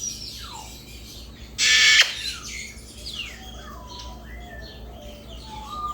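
Male eclectus parrot giving one loud, harsh squawk about one and a half seconds in, with soft chirps and short whistles from birds around it.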